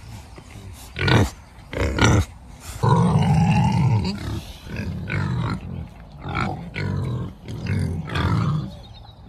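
Pigs grunting. Two short loud calls come about one and two seconds in, then low grunts follow one another quickly.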